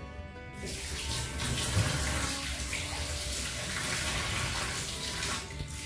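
Kitchen tap running into a stainless steel sink while hands are rinsed under it; the water starts about half a second in and stops shortly before the end.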